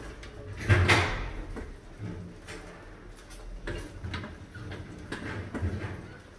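Rats scrabbling over a glass tank trap and the aluminium beer cans set across its top, giving irregular scrapes, rattles and knocks. The loudest knock comes just under a second in.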